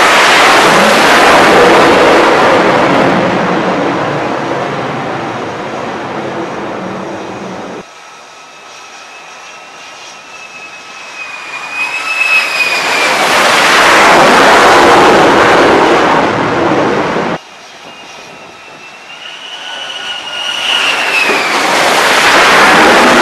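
F-35C Lightning II jet engine noise at high power, swelling loud and fading three times with a whining tone riding over the rush. Each swell is cut off abruptly, about 8 and 17 seconds in.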